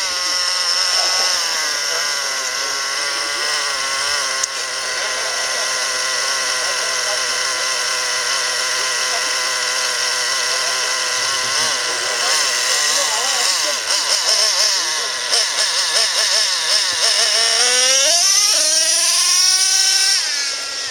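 Radio-controlled off-road car's motor whining. Its pitch holds steady, then wavers up and down with the throttle, and climbs sharply near the end as it speeds up.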